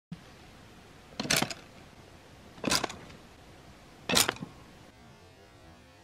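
Hands handling a bamboo-and-wire cage trap: three short scraping rattles about a second and a half apart.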